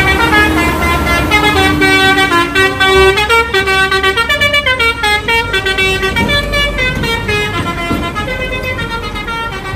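Bus "telolet" musical horn playing a quick tune of stepped notes, several tones sounding together, with a low engine rumble underneath.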